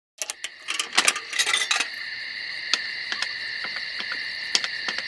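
Soundtrack intro: steady high-pitched buzzing tones with a quick run of sharp clicks over the first two seconds, then occasional single clicks.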